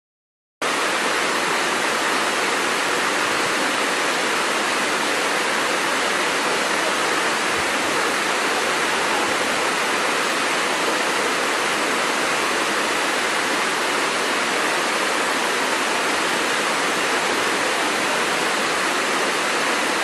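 Steady, even rush of falling water from a waterfall, cutting in abruptly about half a second in.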